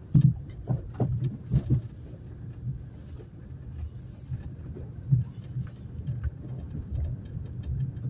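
Car driving on a rough dirt track: a steady low engine and road drone, with irregular knocks and rattles from the bumps, heaviest in the first couple of seconds.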